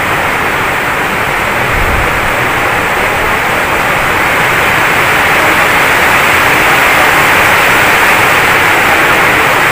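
Loud, steady hissing noise with no breaks, like static or rushing air, slowly growing a little louder.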